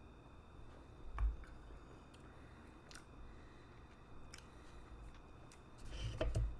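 Faint handling noises during a quiet beer tasting: a soft knock about a second in, a few light clicks, and a small cluster of knocks near the end.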